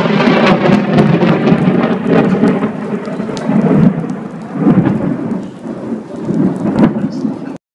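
Thunder from a very close lightning strike rolling on in uneven waves with sharp crackles, over steady rain. It cuts off suddenly near the end.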